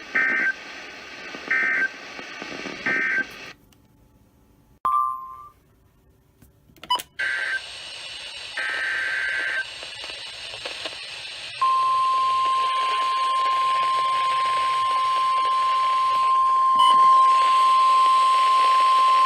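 NOAA Weather Radio emergency alert tones: three short digital data bursts, the end-of-message code closing the warning, then a few seconds of dead air with a click. More data-burst tones follow, and about eleven and a half seconds in the steady 1050 Hz weather-radio warning alarm tone starts, announcing the next warning, and holds to the end.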